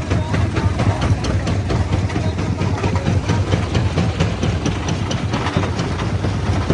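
Quarry jaw crusher running, with a steady low mechanical drone and rapid, irregular knocks and clatter of stone being broken between the jaws.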